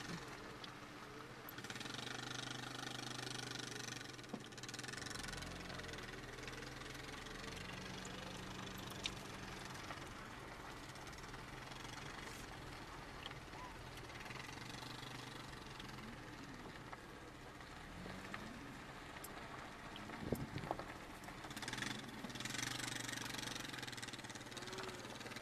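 Vehicle engine running slowly at low speed, a faint steady hum with a few scattered clicks.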